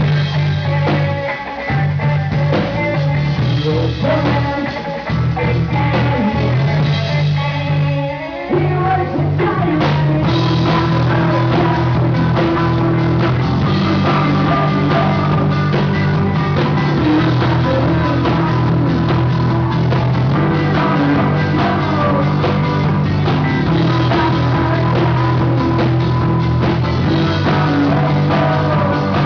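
Rock band playing live with electric guitars and drum kit, the sound thinning out briefly around eight seconds in before the full band comes back in.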